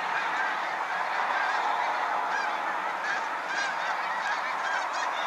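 A large flock of geese, snow geese with some Canada geese among them, calling in a dense, continuous chorus of many overlapping short honks.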